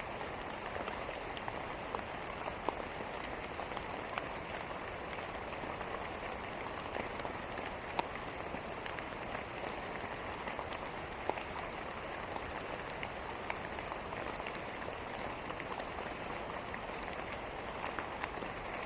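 Steady rain falling on a surface, an even hiss with scattered sharper drip and splash ticks.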